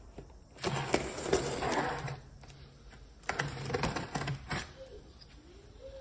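Folding utility knife slicing through packing tape and cardboard along a box seam, in two cutting strokes of about a second and a half each, with small sharp clicks.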